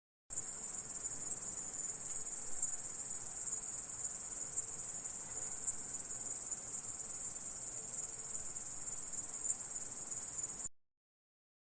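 Grasshopper stridulating: a continuous, dense, high-pitched buzzing trill that starts abruptly just after the start and cuts off suddenly near the end.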